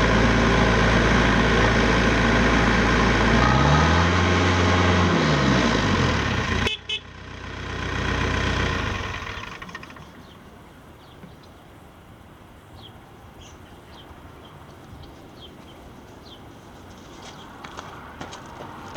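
The Ditch Witch RT45's 49 HP Deutz diesel engine running steadily, revving up and back down once, then shutting off abruptly about seven seconds in. A short fading sound follows, then quiet background with faint light ticks.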